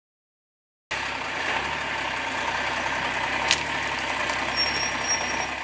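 A truck engine running steadily, starting abruptly about a second in and beginning to fade near the end.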